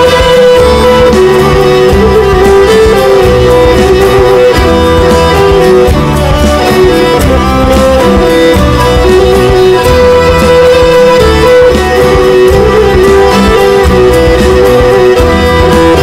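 Soundtrack music: a violin melody of long held notes over a low string and guitar accompaniment.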